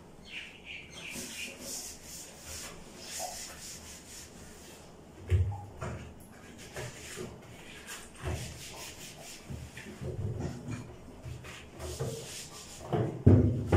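Cloth wiped and rubbed in uneven strokes over a bathroom sink counter and vanity cabinet. Two dull knocks stand out, one about five seconds in and a louder one near the end.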